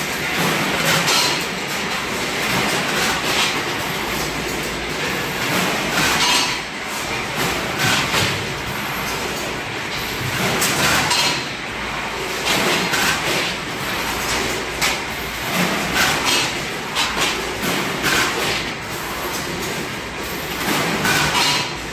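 Automatic sausage weighing and packing line running: a steady machine din with frequent clanks and clicks from conveyors and a vertical bagging machine.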